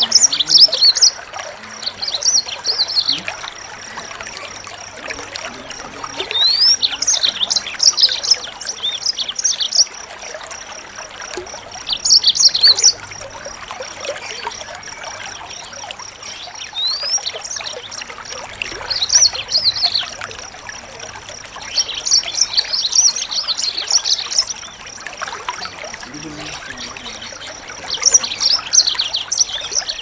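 A small songbird singing short bursts of rapid, high-pitched chirps and trills, one every few seconds, over a steady background of trickling water.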